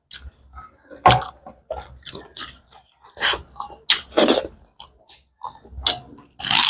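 Close-miked eating sounds from a person eating pork and rice by hand: irregular wet smacks, chewing and finger-sucking, with a louder burst near the end.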